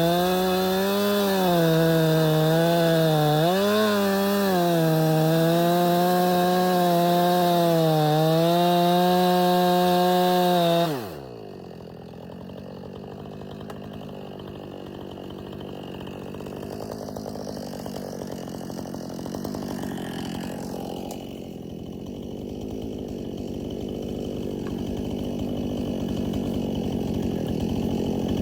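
Gas chainsaw at full throttle cutting through a tree trunk, its pitch wavering slightly under load. About eleven seconds in, the throttle is let off and the engine note falls sharply to a much quieter low running sound.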